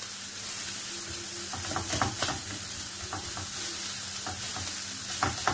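Chopped leek, onion and sausage sizzling in olive oil in a frying pan, stirred with a wooden spoon that taps and scrapes against the pan now and then.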